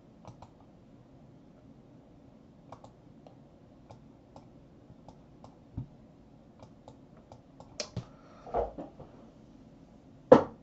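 Faint, irregular clicks at a computer, a dozen or so spread out and coming a little closer together from about seven seconds in, as a slide is marked up on screen. A louder, sharp click comes just before the end.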